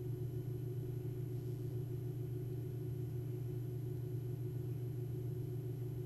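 A steady low hum with a faint high whine above it, unchanging throughout, with no handling clicks or tool sounds standing out.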